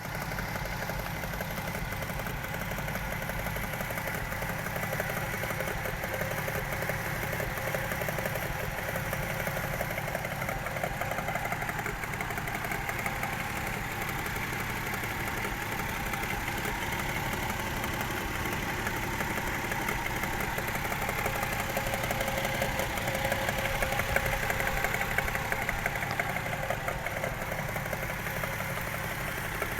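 Toyota 1JZ-GE 2.5-litre straight-six idling with a suspicious knock. People have advised checking the camshaft tightening, which suggests loose camshaft bolts as a possible cause.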